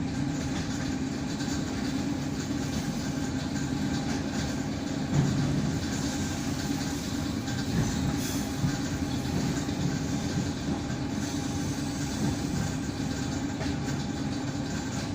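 ED9M suburban electric train running, heard from inside the carriage: a steady rumble of the wheels on the rails, with a few sharp knocks as the wheels pass over rail joints.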